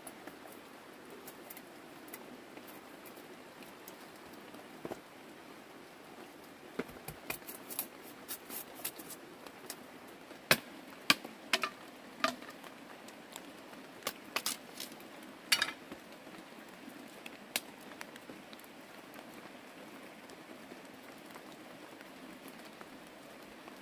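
Sharp cracks and knocks of dry wood being split with a large knife and sticks snapped for kindling, a scattered run of them through the middle of the stretch, over a steady soft hiss.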